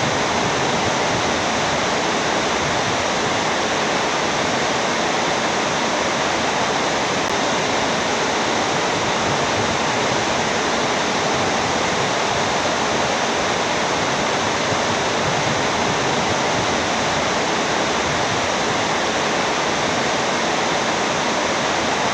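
Heavy rain pouring down, a dense, steady hiss that doesn't let up.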